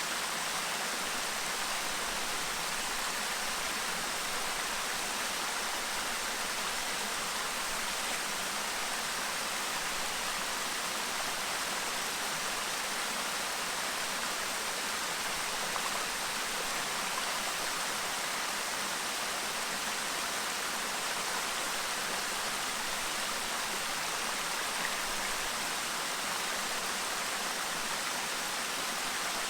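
Clear river babbling steadily, an even rush of water with no breaks.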